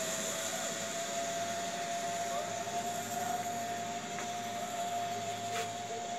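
Zipline trolley running along the steel cable: a steady high whine over a hiss.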